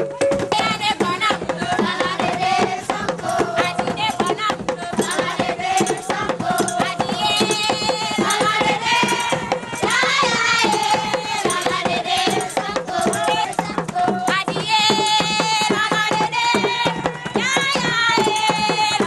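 Traditional drumming with a dense, steady beat, and a group of voices singing over it. The singing grows fuller from about a third of the way through.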